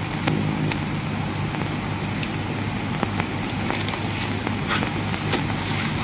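Steady hiss and low hum of an old film soundtrack, with scattered clicks and pops.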